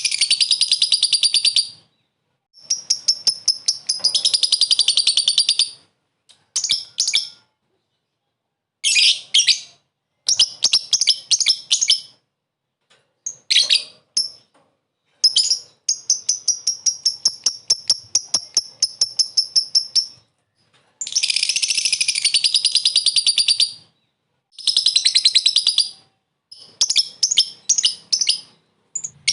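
Lovebird chattering in its 'ngekek' call: runs of rapid, high-pitched repeated notes, about nine a second, each run lasting one to five seconds, with short pauses between them. This is the call used to challenge a rival bird.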